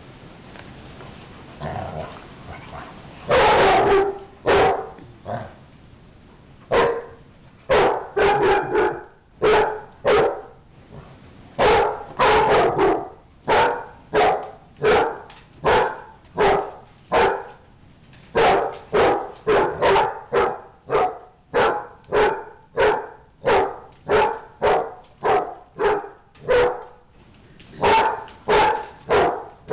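A dog barking again and again in rough play, about one bark a second and sometimes two or three in quick succession, starting about three seconds in.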